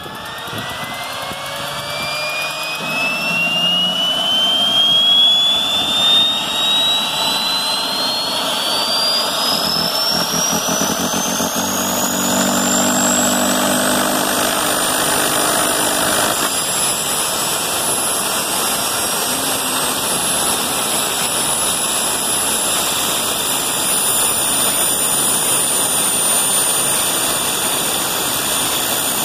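Turbine engine of a Rotorway JetExec kit helicopter starting and spooling up. A whine rises steadily in pitch for the first fifteen seconds or so, then levels off and eases slightly as the engine settles to a steady run. A lower rumble under it cuts off about sixteen seconds in.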